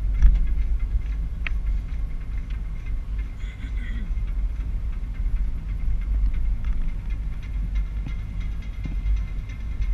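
Low rumble of a car driving slowly over tarmac, picked up by a dashcam inside the cabin, with small clicks and rattles scattered through it.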